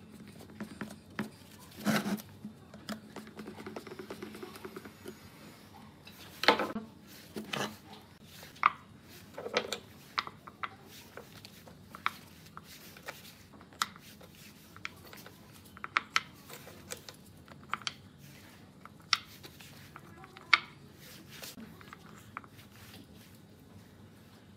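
Wooden blocks being handled and set down on a plastic-covered plywood board: scattered, irregular light knocks and clacks.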